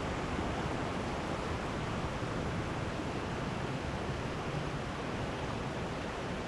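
Steady rushing noise of a waterfall, even and unbroken.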